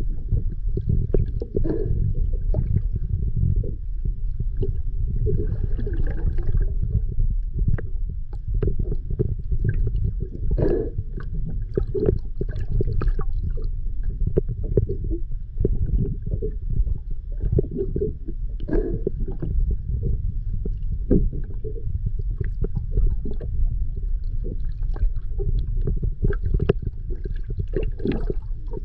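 Underwater sound: a steady low rumble with crackling and short gurgling bursts of bubbles every few seconds, typical of a scuba diver's exhaled bubbles.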